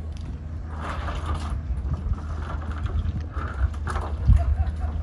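Rummaging in a boat's fish-box hatch: rustling and a few knocks, with a heavier thump about four seconds in, over a steady low hum.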